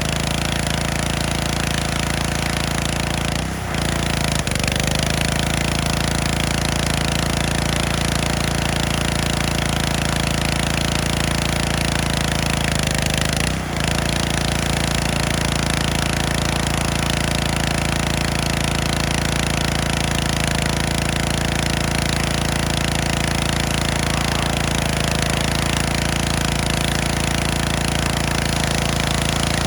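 Gas-engine pressure washer running steadily with the hiss of its high-pressure spray, the sound dipping briefly twice.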